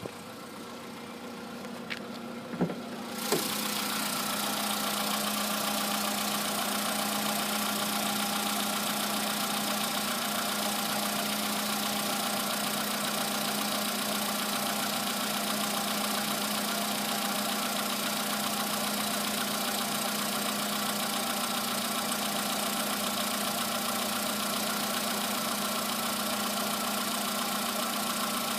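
Volkswagen Polo Sedan engine started cold; after a couple of clicks it catches about three seconds in and idles steadily. The knock it makes persists about 9,000 km after its pistons were replaced with modified ones.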